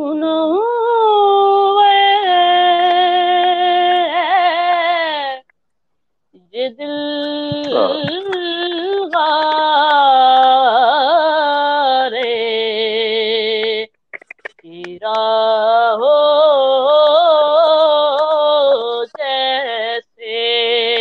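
A boy's solo voice singing a naat unaccompanied, in long held and ornamented phrases with brief pauses between them. The sound comes over a video call, which makes it thin at the top.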